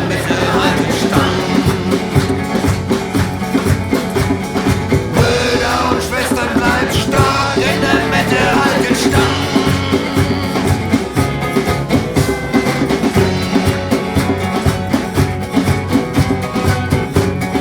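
Rock-style music with drums, guitar and singing, with a steady beat.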